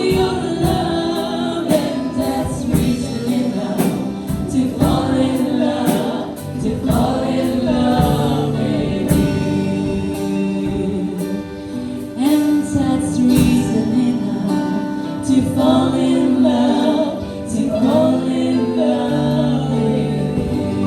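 A worship team singing a gospel praise song together over sustained instrumental chords, with a steady beat.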